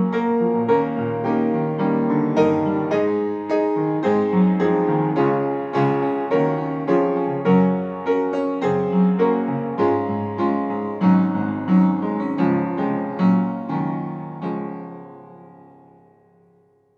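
Solo piano music, notes struck at about two a second, fading out over the last couple of seconds.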